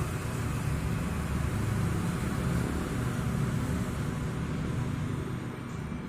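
Road traffic: a vehicle's rumble and tyre noise that builds over the first couple of seconds and fades toward the end.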